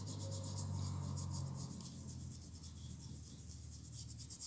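Faint scrubbing of a small brush against a hardened steel lathe chuck jaw in a plastic tub of pickling solution, to strip the black scale left by hardening, with a low hum that fades after about a second and a half.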